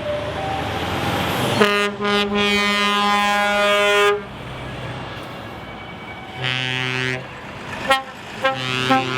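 Truck horns blasting as trucks pass: one long blast of several tones together starting about a second and a half in and lasting over two seconds, a shorter blast a few seconds later, and a couple of quick toots near the end, over a haze of traffic noise.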